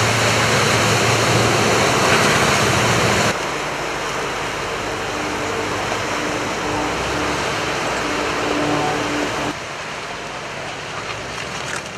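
Rushing, churning water from a cargo ship's side launch into a canal: the launch wave surging and water pouring back off the slipway. The sound changes abruptly about three seconds in and again near the end.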